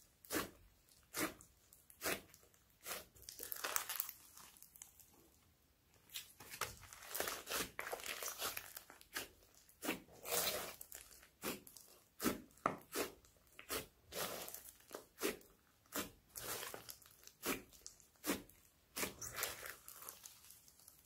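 Hands kneading and squeezing glossy foam-bead slime: sharp crackling pops about one to two a second as trapped air bursts, with a few longer stretches of crunchy crackling as the slime is stretched. There is a short lull partway through.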